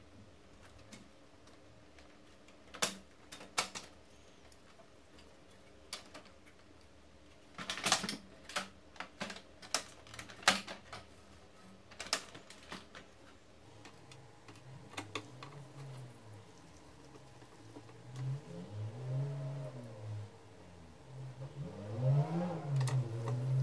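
Sharp clicks and knocks of plastic printer parts being handled inside an HP LaserJet Pro M278-M283 while it is taken apart. In the second half a low pitched sound rises and falls several times, loudest near the end, as the plastic parts are moved.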